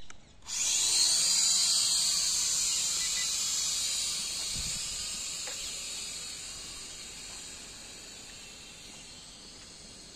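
Small toy quadcopter's electric propeller motors spinning up about half a second in to a steady high-pitched whine, which then fades gradually as the drone climbs away.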